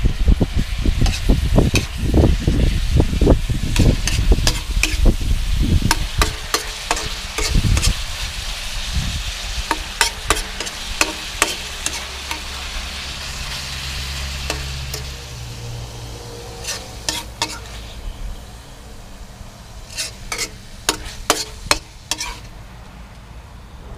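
Stir-frying in a wok: a metal spatula clanks and scrapes against the pan while the food sizzles. Heavy low bumps come through during the first several seconds. About halfway through the sizzle dies down and the spatula strikes come further apart.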